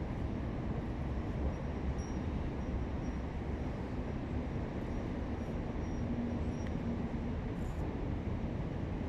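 Steady low rumble, with a faint hum coming in around the middle and stopping a couple of seconds before the end.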